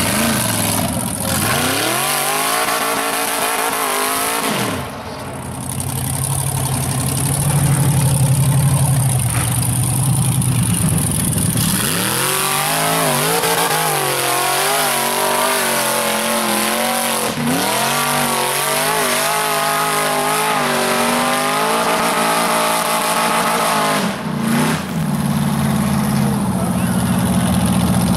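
Rock bouncer buggy's engine revving hard in repeated surges, its pitch climbing and dropping back again and again, with steadier stretches between, under load as the buggy claws up a steep dirt hill.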